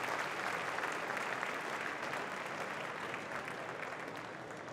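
A large audience applauding, the clapping gradually dying away.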